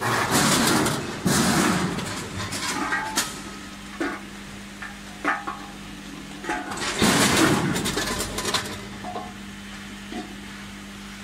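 Food pieces clattering down through the stainless-steel hoppers of a multihead weigher: three longer bursts of clatter, at the start, about a second in and about seven seconds in, with single sharp metal knocks between them over a steady low machine hum.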